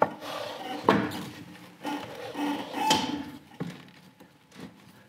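Rubber drive belt and clutch sheaves of a snowmobile being turned by hand, rubbing with a few sharp knocks as the belt is worked up to the top of the clutch pulleys, about a second apart.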